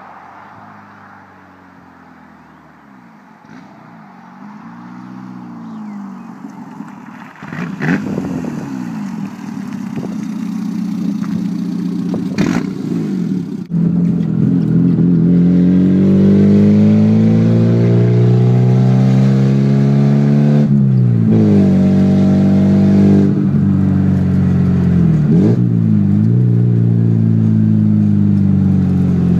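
Rover Mini MPi's 1.3-litre A-series four-cylinder running with no exhaust fitted. It is first heard from the roadside, growing louder as it draws nearer with the revs rising and falling. About halfway through it is loud from inside the car, accelerating hard, its pitch climbing and dropping sharply twice at gear changes.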